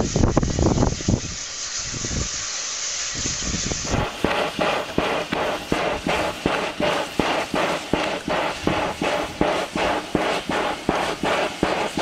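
Wind buffeting the microphone for the first few seconds, then an SY 2-8-2 steam locomotive's exhaust beating in a steady rhythm, about two to three beats a second.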